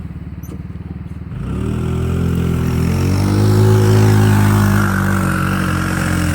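Small engine of a kids' off-road vehicle chugging low at first, then revving up about a second and a half in and holding at high revs as it accelerates.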